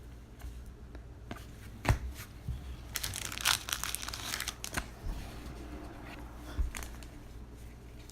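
Plastic trading-card packaging crinkling and rustling as cards are handled, with a sharp tap about two seconds in and the densest crinkling from about three to five seconds in.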